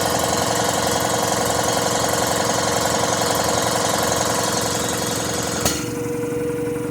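Quincy reciprocating air compressor running under load, pumping up the tank. About five and a half seconds in a sharp pop as the continuous-run unloader valve opens at cutout pressure and vents through an Alwitco muffler, after which the compressor keeps running unloaded, more quietly.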